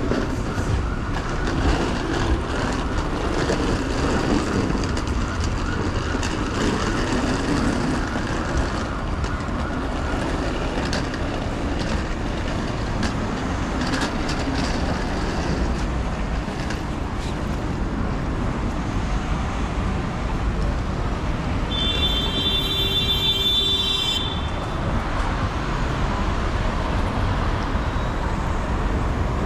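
City street traffic: a steady rumble of passing vehicles. About 22 seconds in, a high, steady tone sounds for about two seconds.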